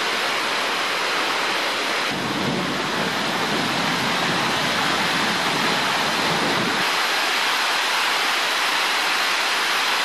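Heavy tropical downpour falling steadily on dense rainforest foliage, a thick even hiss of rain.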